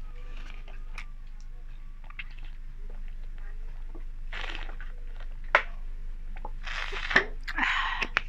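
Small plastic water bottle being opened, drunk from and recapped: light clicks of the cap, swallowing, and the thin plastic crackling, with the sharpest cracks and loudest crackling in the second half.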